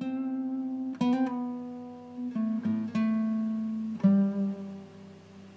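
Intro music: a guitar plucking single notes and chords that ring and fade, a new one about every second, tailing off quieter near the end.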